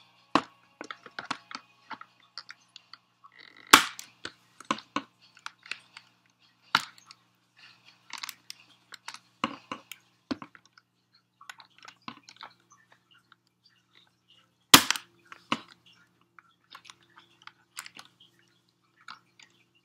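Irregular clicks, snaps and crinkles of packaging being handled as a plastic model horse is worked free of the metal clips holding it in its box, with two sharper snaps, about four seconds in and again about fifteen seconds in.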